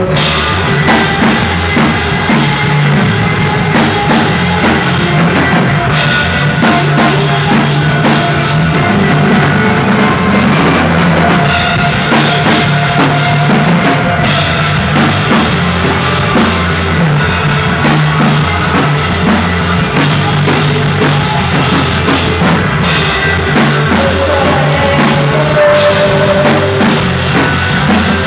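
A live rock band playing loud and steady, with a drum kit and electric guitars, and no singing.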